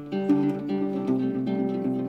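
Guitar playing a song's opening, single notes picked in quick succession and ringing over one another.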